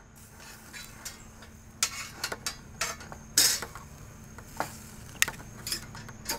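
Metal grill tongs clicking and clinking against a stainless-steel grill grate as a tri-tip is laid on and pushed into place: a scattered series of short, sharp clinks, the loudest about three and a half seconds in.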